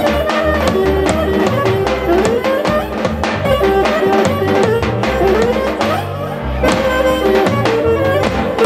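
Live Greek folk dance music from a clarinet, accordion and percussion band: a melody with pitch slides over a steady drum beat and bass line.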